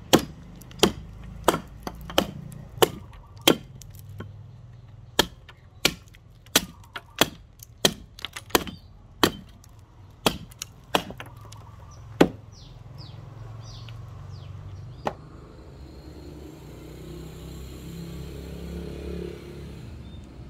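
A hatchet chopping into wood: about fifteen sharp blows, roughly one every two-thirds of a second, that stop about twelve seconds in, followed by one fainter knock.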